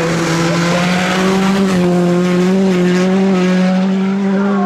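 A Hyundai i20 Rally2 car's turbocharged four-cylinder engine held at high revs through a gravel corner. The note drops briefly at the start, then holds and slowly climbs, over the hiss of loose gravel spraying from the tyres.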